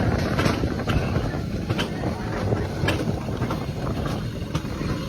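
Wind buffeting the microphone over a steady low rumble, with scattered light clicks.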